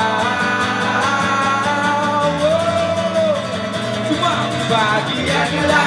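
Acoustic guitar strummed steadily under a man's voice singing long, drawn-out notes.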